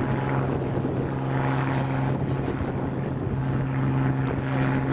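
Propeller-driven aerobatic monoplane, an XtremeAir XA41, droning steadily as it flies its display, with a strong low engine hum.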